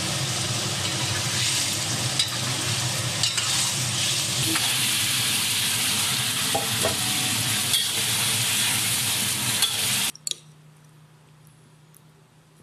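Sliced mushrooms sizzling as they fry in a wok, stirred with a metal spatula, with scattered light scrapes and taps against the pan. The sizzling stops abruptly about ten seconds in, leaving only a faint low hum.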